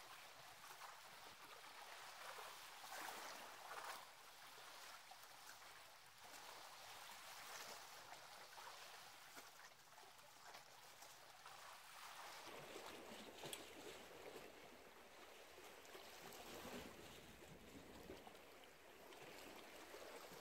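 Near silence with a faint, steady wash of calm sea water against shore rocks.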